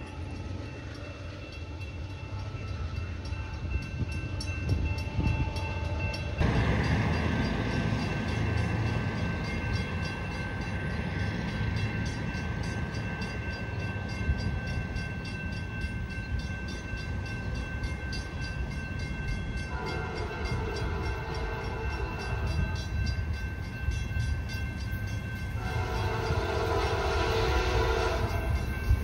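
Low rumble of a passing Amtrak Superliner train. After a cut, an approaching Trinity Railway Express commuter train sounds its horn in two long blasts of about three seconds each, the first about two-thirds of the way through and the second near the end, over the steady rumble of the train.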